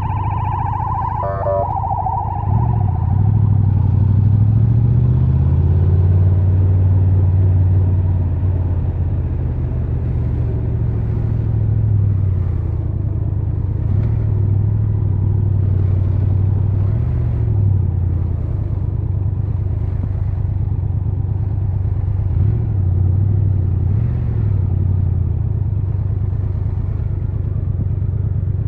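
Triumph Tiger 1200 Rally Pro's three-cylinder engine running while riding, heard from the rider's position. Its pitch rises and falls with throttle and speed.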